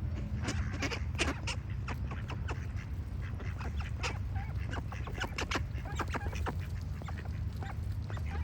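Ducks quacking in many short, irregular calls, mixed with birds singing, over a steady low rumble.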